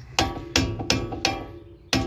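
Hammer blows on the steel wheel hub: five sharp, ringing metal strikes, about three a second, hammering at wheel studs seized in the hub.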